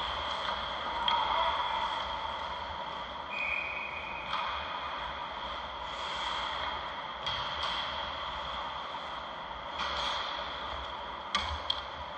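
Ice hockey rink during play: a steady hiss of rink noise and skating, broken by several sharp clacks of sticks and puck, the loudest pair near the end.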